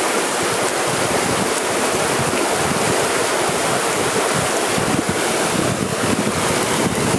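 Fast river current rushing steadily, with wind noise on the microphone.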